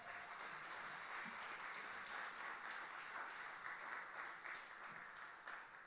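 Audience applauding, a steady patter of many hands that dies away near the end.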